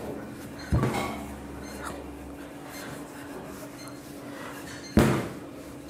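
Wooden rolling pin rolling out pizza dough on a floured work table: soft rubbing and rolling, with two knocks, one about a second in and one near the end, over a steady low hum.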